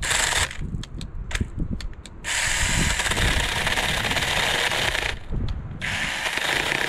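Cordless 21 V mini electric chainsaw run in bursts while cutting a branch: a short burst at the start, a few clicks, then a steady run of about three seconds, a brief pause, and it runs again near the end.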